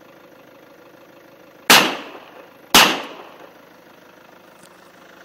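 Two gunshots from a Glock pistol about a second apart, each a sharp crack with a short echoing tail.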